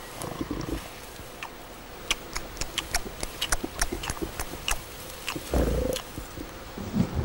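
Low, short boar grunts, the loudest about five and a half seconds in, with many sharp clicks scattered between them.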